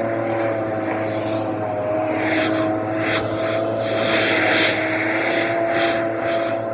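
Vacuum cleaner running with a steady motor whine. From about two seconds in, it gives several surges of louder hiss as air rushes through the nozzle.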